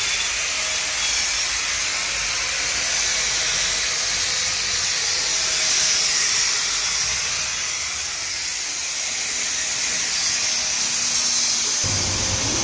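Electric angle grinder grinding steel: a steady, harsh hiss of the disc on the metal.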